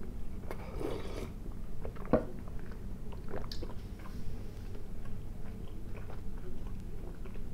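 A slurped sip of tea from a glass mug, then a sharp knock about two seconds in, then chewing a mouthful of soft milk sherbet with peanuts, with small wet clicks.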